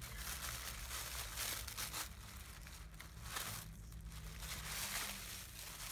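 Pink scalloped tissue paper crinkling and rustling as a tissue-wrapped gift is unwrapped by hand, in three spells with short pauses between.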